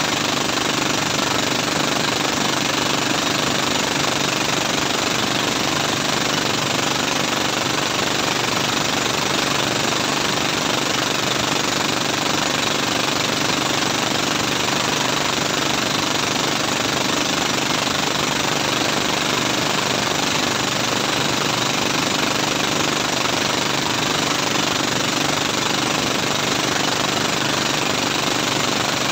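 Outrigger bangka's engine running steadily at speed while towing a banana boat, with the rush of the wake.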